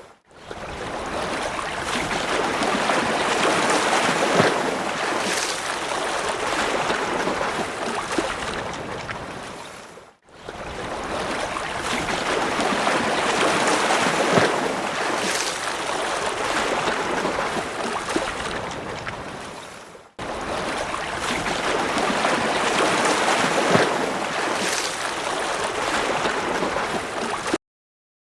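Rough-sea sound effect: a steady wash of waves that swells and breaks. It is a loop of about ten seconds that plays three times, with short dips between repeats, and cuts to silence near the end.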